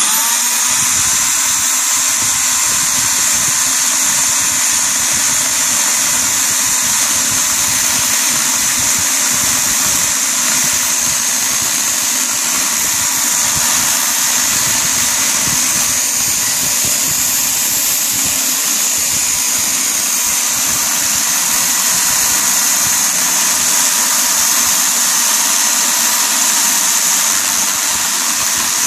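Bosch AKE 30 S electric chainsaw starting up, its motor whining up to speed over the first second, then running steadily as the chain cuts down through a thick wooden log.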